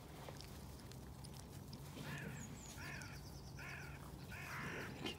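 Crows cawing: four harsh calls, about one a second, starting about two seconds in.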